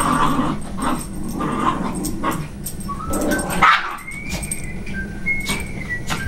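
Two small dogs vocalising as they play tug-of-war with a toy, in irregular bursts with a few sharp clicks.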